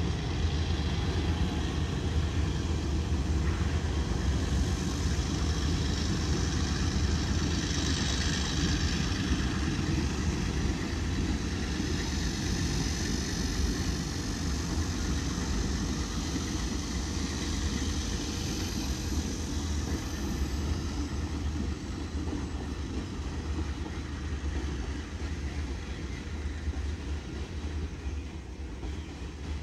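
Freight train of grain hopper wagons rolling away along the track: a steady rumble that slowly fades toward the end.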